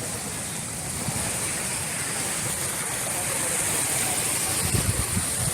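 Waves of the incoming tide washing onto a sandy beach: a steady wash of surf.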